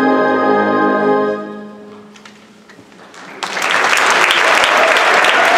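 A high school symphonic band holds the final chord of its piece, which dies away about two seconds in. After a brief hush the audience breaks into applause, which starts abruptly and carries on.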